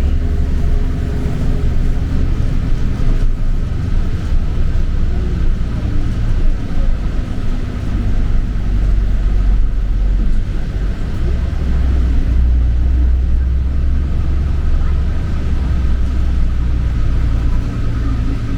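Sightseeing bus running, a steady low engine and road rumble heard from inside the cabin.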